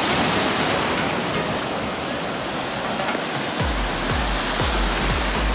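Ocean surf washing in a steady roar of noise; about two-thirds of the way through, background music with a deep, regular bass beat comes in over it.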